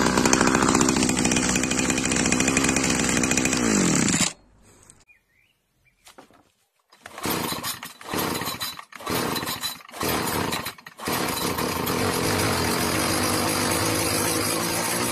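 Small Chinese two-stroke brush cutter engines. The first runs steadily and its pitch drops just before it cuts off. A second one is pull-started cold: it fires in three short bursts that die away, then catches and keeps running steadily.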